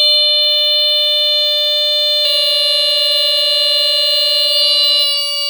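Two vintage smoke detector horns sounding steadily on their test buttons, one of them the Honeywell TC89B's Kobishi CLB-27 squealer horn. One piercing tone comes on at once, a second horn at a slightly different pitch joins about two seconds in, and one of them drops out about five seconds in while the other keeps sounding.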